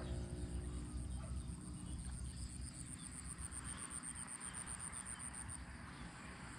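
Crickets or other insects trilling: a high, rapidly pulsing trill that turns into a steady tone near the end, over a low rumble.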